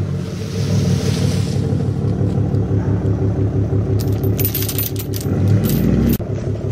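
A vehicle engine running steadily while a steel log chain is pulled taut around logs. From about four seconds in, the chain links clink and rattle as it tightens.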